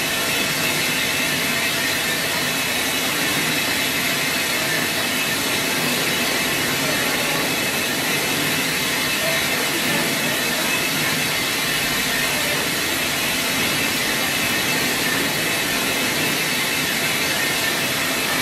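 Automatic tank polishing machine's abrasive head grinding a rotating stainless steel tank: a steady, even hiss with a faint whine in it.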